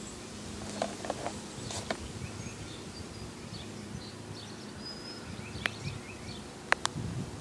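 Outdoor yard ambience: a steady low hum with scattered short bird chirps, and a few sharp clicks near the end.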